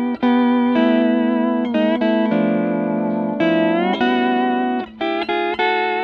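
Early Fender Pro steel guitar fitted with Nick Fryer pickups, played clean through a Fender Bassman amp: chords picked and left to ring, some notes gliding smoothly up in pitch twice, then a few quick short picked notes near the end.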